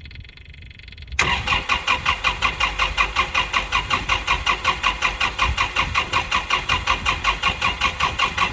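Kubota L4701 diesel tractor being cranked on its starter, starting about a second in with a steady, even pulsing of about six beats a second. The engine turns over without catching while the cranking purges air from the fuel system after a water-contaminated fuel filter has been changed and bled.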